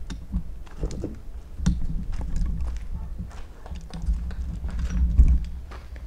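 Footsteps on a rubble-strewn concrete floor: irregular steps and scrapes of shoes over broken concrete and debris, over a low rumble.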